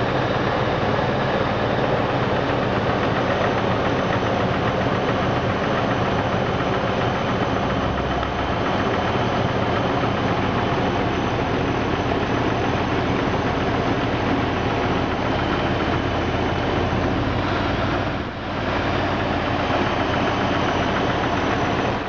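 Jeep Grand Cherokee 4.0 L straight-six idling, a steady knock running through it along with a squeal and whine that are there while the engine is still cold. Mechanics place the knock where the bellhousing meets the oil pan; its cause is unknown.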